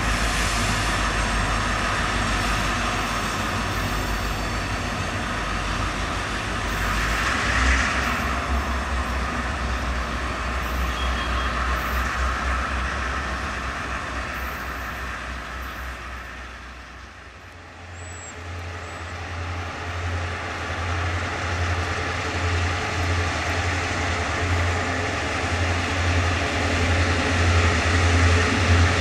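EMD GP38-2 diesel freight locomotives running as the train moves slowly away. The engine sound eases off a little over halfway through, then a low pulsing rumble builds again toward the end.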